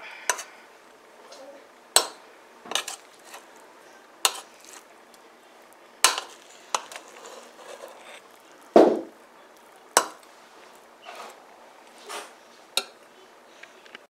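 A steel ladle knocking and scraping against the side of a metal cooking pot as dum-cooked biryani rice is dug into and turned over. There are about a dozen irregular clinks, with a heavier knock about nine seconds in.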